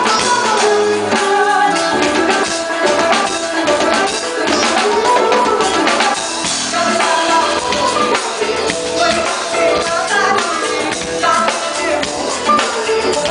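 Live band playing: a drum kit with cymbals, struck busily and steadily, under pitched melodic instruments.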